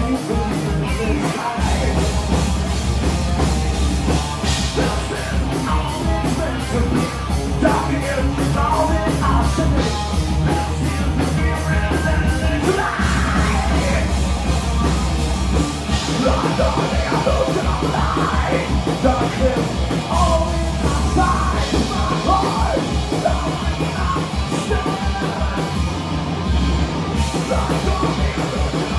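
Heavy metal band playing live, with yelled vocals over a dense wall of instruments and rapid drum hits.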